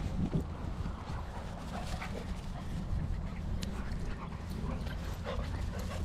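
Two dogs, a black Labrador and a small shaggy terrier-type dog, play-fighting on grass, with short dog vocalizations several times over a steady low wind rumble on the microphone.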